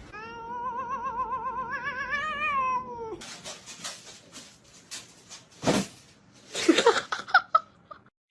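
A cat yowling in one long wavering call of about three seconds, its pitch wobbling rapidly. This is followed by a few knocks and thumps and a brief burst of loud, short sounds near the end.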